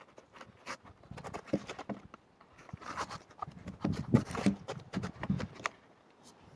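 A run of irregular clicks and knocks from handling a pistol and its magazines on the bench, the loudest about four seconds in.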